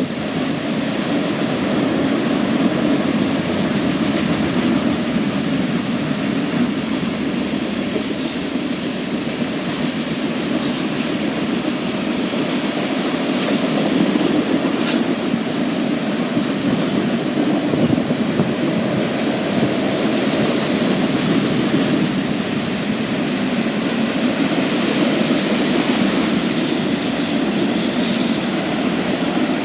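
Norfolk Southern freight train's cars rolling past on the rails with a steady rumble and clatter. Brief high-pitched wheel squeals come through twice, about a quarter of the way in and again near the end.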